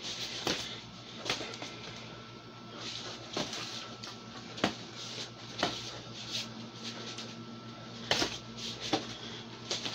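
Gloved sparring: about ten sharp, irregular thuds of boxing gloves landing on arms and bodies, roughly one a second, with shuffling feet over a steady low hum.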